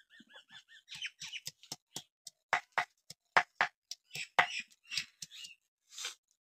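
Stone pestle (nora) knocking on a flat grinding stone (sil) as garlic cloves are crushed: a string of sharp, irregular knocks that stop about six seconds in. A short run of quick, high chirps sounds in the first second.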